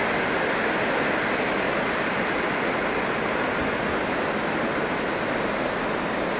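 Steady rushing rumble of a departing locomotive-hauled passenger train rolling away out of the station, easing slightly as it goes.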